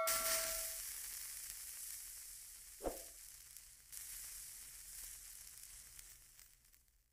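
Pancake batter sizzling faintly in a hot pan, the sizzle fading away over several seconds, with a short dull knock about three seconds in.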